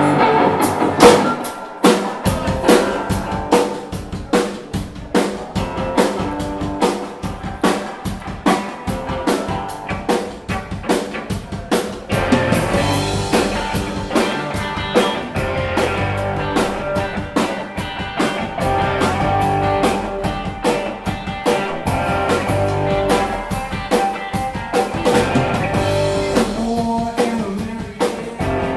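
Live rock band playing an instrumental intro: electric guitars over a steady drum-kit beat, the low end filling out about halfway through.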